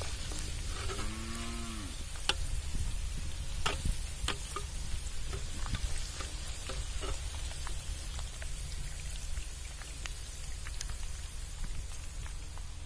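Masala-coated ivy gourd pieces deep-frying in hot oil in an iron kadai, sizzling steadily with scattered sharp pops while a perforated skimmer stirs and lifts them. A short low call sounds briefly about a second in.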